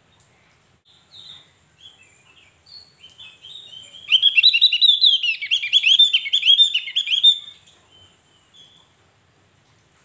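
Javan grey-throated white-eye (opior Jawa) giving a few soft, scattered chirps, then about four seconds in breaking into a loud, fast song of rapid down-slurred notes that lasts about three seconds before tailing off into a couple of soft calls.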